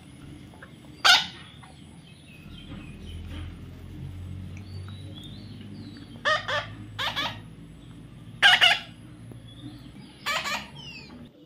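Domestic fowl giving a series of short, loud calls, about five of them spread through the span, with a few faint high chirps near the end.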